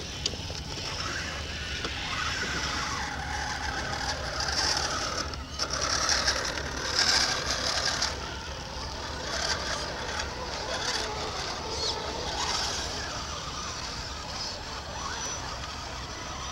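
Radio-controlled scale crawler trucks' electric motors and geared drivetrains whining and grinding as they climb a steep dirt slope, with tyres scrabbling over loose dirt and stones, loudest about halfway through.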